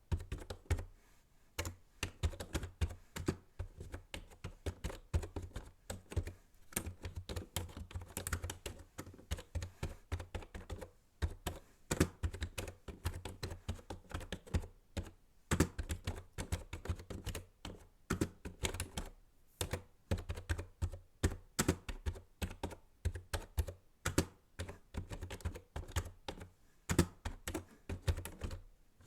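Typing on a computer keyboard: a fast, uneven run of key clicks, broken by a couple of short pauses.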